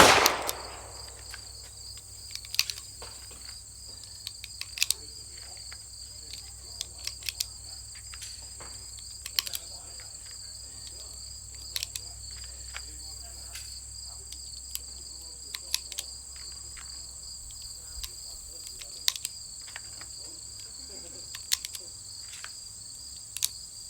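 Steady high-pitched chorus of insects, with scattered light clicks and snaps from handling ammunition and a pistol magazine, likely while 9mm rounds are loaded for the next string of shots.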